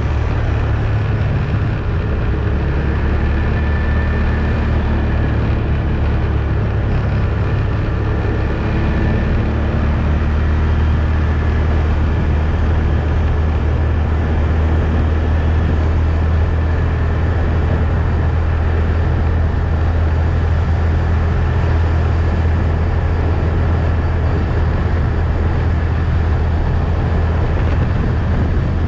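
ATV engine running steadily under way, a low even drone with no change in pace.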